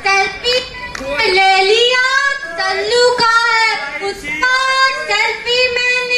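A woman singing a melody in a high voice, with several long held notes.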